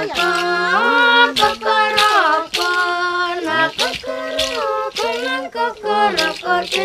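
Girls singing without instruments: held, gliding sung notes with clearly sung words.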